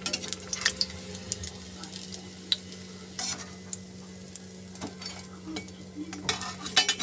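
Bread pakoras sizzling in hot oil in a black iron kadhai, with a slotted steel spatula clicking and scraping against the pan as they are lifted out.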